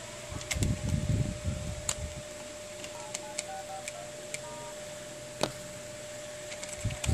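iPhone 6 Plus dialer keypad tones: a quick run of short beeps, one per digit, as numbers are tapped on the newly fitted touchscreen to check its touch response. Soft handling thumps come in the first two seconds and a sharp click a little after five seconds.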